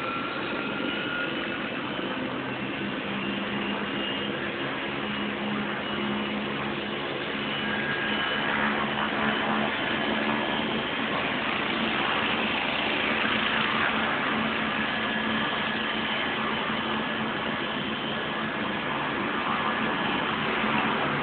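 Helicopter running on the ground with its engine and rotor turning: a steady engine sound with a constant low hum and high whining tones, getting a little louder about eight seconds in.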